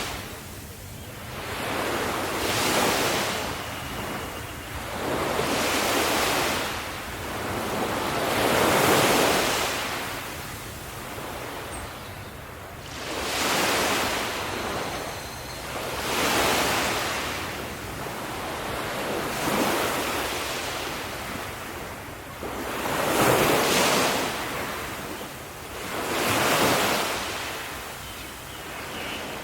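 Ocean waves breaking and washing up the shore, in a steady run of surges about every three seconds, each rising and falling away.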